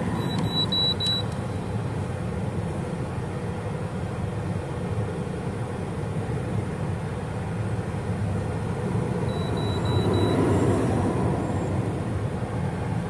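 Handheld OBD-II scan tool beeping as the stored trouble codes are erased and re-read: a quick run of short high beeps at the start and four more about nine and a half seconds in, over a steady low rumble.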